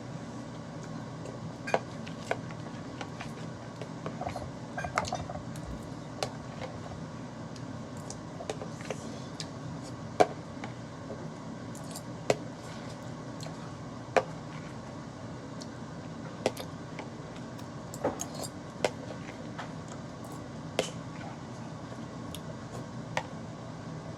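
Cutlery and dishes clinking during a meal: short sharp clicks, about one every couple of seconds, over a steady low hum.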